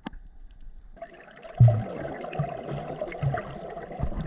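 Muffled water sloshing and bubbling picked up by an underwater camera around a swimming snorkeler in fins, starting about a second in, with a low thump soon after.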